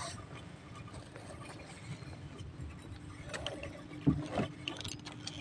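Water lapping against a small boat's hull, with a faint steady hum and a few light knocks, the loudest about four seconds in.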